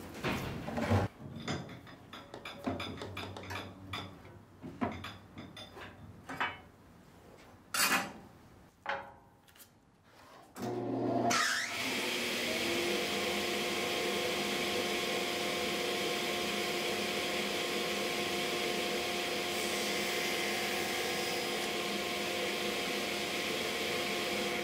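Scattered clicks, rubs and knocks of hands peeling tape off a wooden tray frame and handling it. About ten seconds in, a table saw motor starts, its blade spinning up with a rising whine, then runs steadily at speed with a constant hum.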